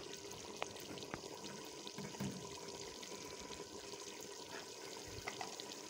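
Thick black-eyed pea daal simmering in a metal pot with oil on top: faint, steady bubbling with scattered small pops.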